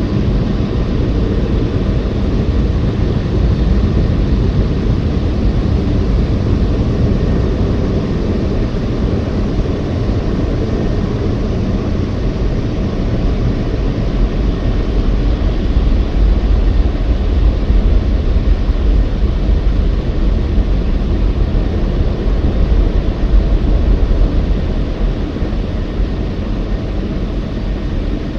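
Tammermatic T700 Lux rollover car wash working over the car, heard from inside the car's cabin: a loud, steady rumbling rush of the machine's brushes and water or air against the body.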